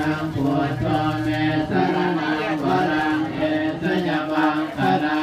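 Buddhist chanting: a continuous recitation on a largely held pitch, without pauses.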